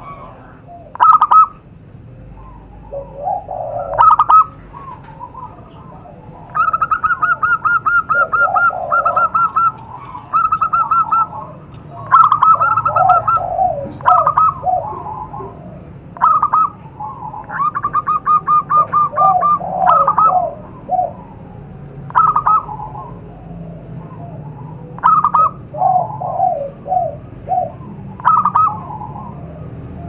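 Zebra doves calling: short high coos alternate with rapid staccato runs of cooing notes lasting a second or two, with lower warbling notes in between, repeated throughout. This is a lure recording of perkutut song used to call in wild zebra doves.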